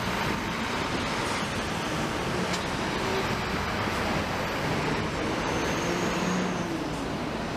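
Steady city street traffic noise at a tram stop, cars and buses running past, with a faint high whine for about a second near the end.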